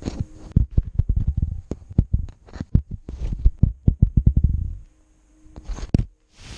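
Small camera being bumped and jostled on a foam floor mat by a dwarf rabbit pushing against it: irregular dull knocks and thumps for about five seconds. Then a short pause, a couple of clicks and a brief rustle near the end.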